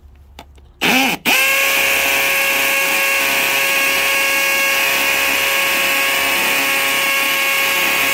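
Milwaukee M18 Fuel Gen 4 hammer drill (2904-20) in hammer-drill mode, driving a masonry bit at high RPM into concrete. A short trigger blip comes a second in, then the drill runs loud and steady with a constant whine as it bores into the concrete.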